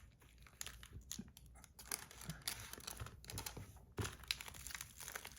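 Plastic packaging being unwrapped by hand: faint crinkling and tearing, with a few light clicks.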